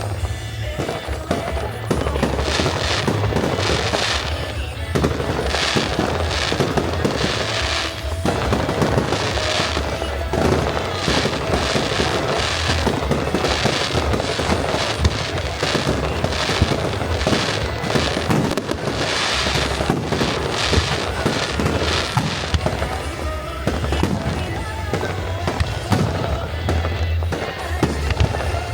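Fireworks display: aerial shells bursting and crackling in quick succession, one after another, over music.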